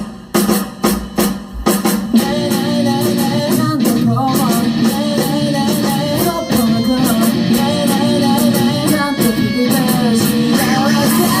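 Live rock band starting a song: about six loud hits together in the first two seconds, then the full band playing on with electric guitar and bass.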